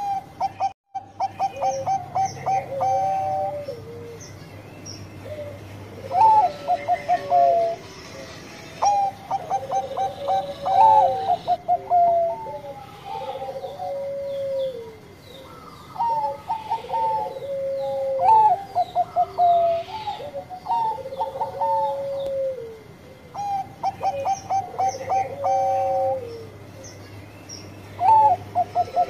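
Perkutut Bangkok (Thai-bred zebra dove) singing its cooing song over and over: each phrase is a quick run of short staccato notes followed by a longer, lower rolling coo, repeated every two to three seconds. There is a brief dropout about a second in.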